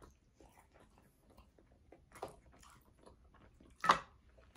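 Close-up mouth sounds of a person eating fried chicken: soft chewing and small wet clicks, with one sharper, louder mouth sound near the end.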